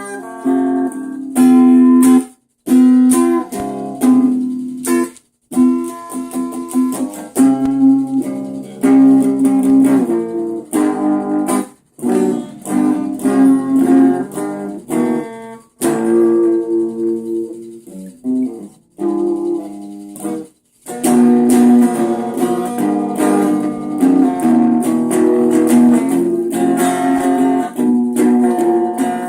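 Guitar music: plucked notes and chords played continuously, broken a few times by brief, sudden drops to silence.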